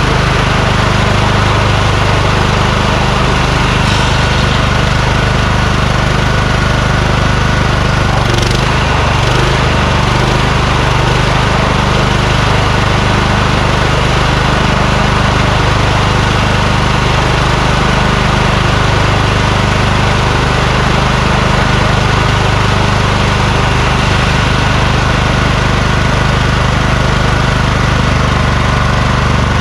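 Kohler Courage engine of a Craftsman YS4500 lawn tractor running steadily, with a brief sharp click about eight seconds in.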